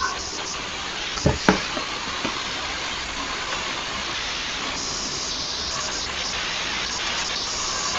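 Steady hiss of background noise, with two short knocks close together about a second and a half in.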